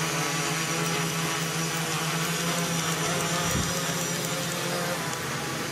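Small homemade quadcopter's brushless motors and propellers whirring steadily as it hovers low in barometer altitude hold, drifting slowly sideways.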